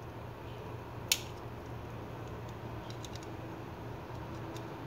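Small metal clicks of a vernier caliper working the slotted screw of a Gerber MP600 multitool: one sharp click about a second in and a few light ticks around three seconds, over a steady low hum.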